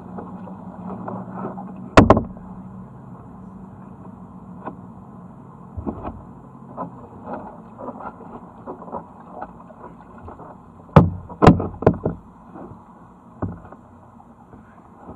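Paddling a tandem kayak: paddle blades dipping and water dripping, with sharp knocks of a paddle against the boat, one about two seconds in and three in quick succession later on.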